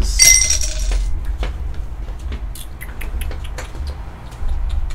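Irregular light clicks, typical of a computer mouse and keyboard being worked, with a short bright ringing rustle in the first second.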